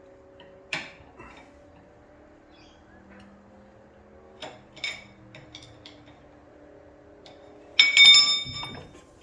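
Metal tools and suspension parts clinking with a few light knocks, then a loud metallic clank that rings briefly near the end.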